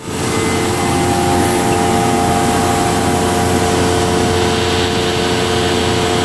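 A 10 hp Gardner Denver Elmo Rietschle V-VC 303 oil-lubricated rotary vane vacuum pump running steadily: a loud, even machine hum with a few steady tones over a rush of air.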